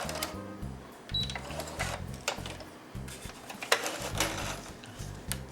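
Brother SQ9185 computerized sewing machine stitching through vinyl with its walking foot fitted, the needle clicking rapidly.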